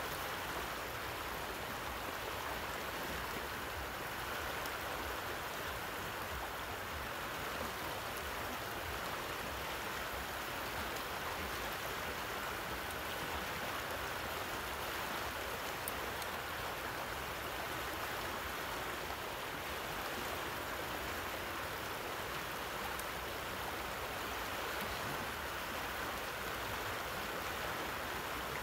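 Fast, rough river current rushing past a steep bank: a steady, unbroken wash of moving water.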